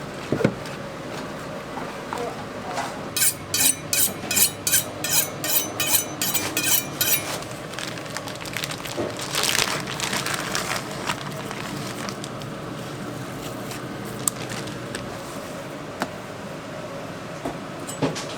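Kitchen food-prep sounds: a quick, even run of about a dozen strokes of a utensil, about three a second, then scattered clicks and clatter, over a steady hum.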